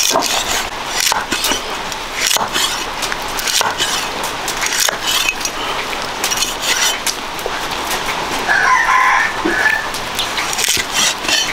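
A rooster crows once, about nine seconds in, over a steady scatter of small clicks and crackles.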